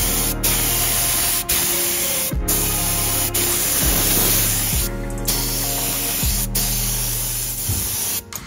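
Air spray gun hissing as it sprays a metal-flake coating onto a car's steel frame, in passes broken by several brief pauses of the trigger.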